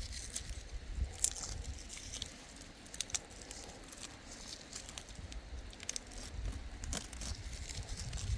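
Irregular crackling and crunching of dry wood and twigs being worked by hand, with scattered sharp clicks over a low rumble of handling.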